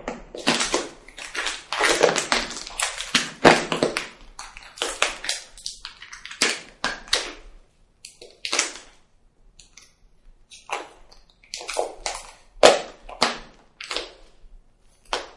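Vinyl wrap film being pulled, stretched and tucked by hand around a motorcycle tail section: irregular crinkling, rustling and tapping, busy at first and more broken up later.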